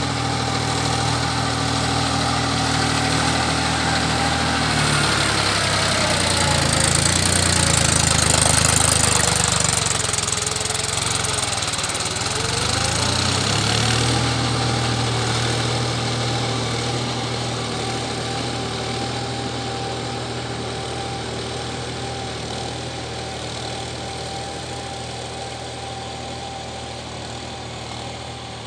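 Mahindra 275 DI SP Plus tractor's three-cylinder diesel engine running under load while puddling a flooded paddy field. It is loudest about eight seconds in as it passes close by, then grows steadily fainter as it pulls away.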